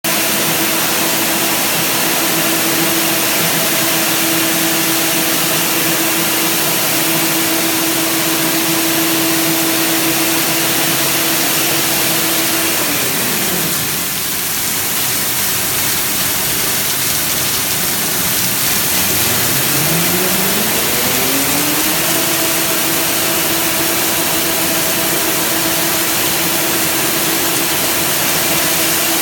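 Four-colour packing-tape printing machine running, a steady motor hum over a loud even blower hiss. About 13 seconds in the hum glides down in pitch and dies away as the machine slows to a stop, then about 19 seconds in it glides back up and settles at its running pitch as the machine starts again.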